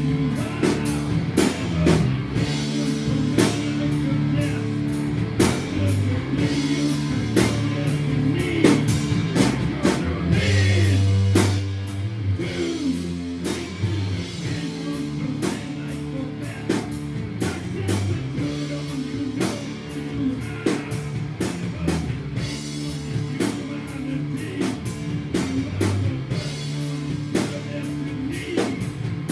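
A live rock band playing: a drum kit keeping a steady beat under electric guitar, with a man singing.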